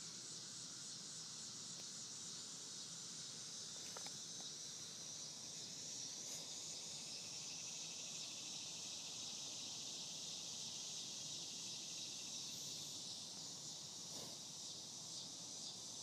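Steady high-pitched insect chorus, an even summer buzz with no breaks.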